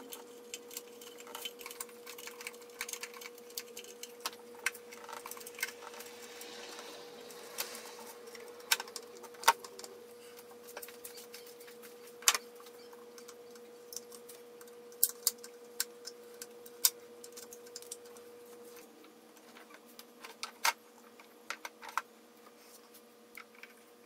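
Irregular sharp metallic clicks and clinks of parts and tools being handled on a carbureted V8 engine, with a faint steady hum under them that stops about three-quarters of the way through.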